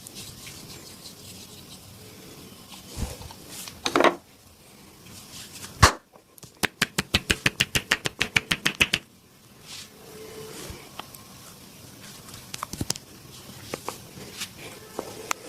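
Percussive hand massage: scattered light slaps and taps, a sharp smack about six seconds in, then a rapid run of about sixteen tapping strokes, some seven a second, lasting about two and a half seconds.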